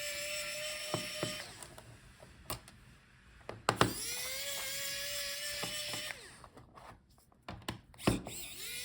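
Small electric screwdriver with a Phillips bit spinning in short runs as it backs out laptop bottom-case screws. Each run is a whine that rises as the motor spins up, holds steady for a couple of seconds and stops. There are three runs: one ends about a second and a half in, one starts near the middle, one starts near the end. Light clicks fall between them.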